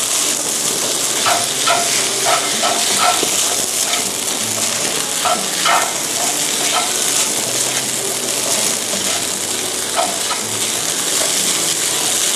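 Garlic fried rice sizzling with a steady hiss in a hot nonstick frying pan as it is stir-fried. A plastic slotted spatula scrapes and taps against the pan now and then, mostly in the first half.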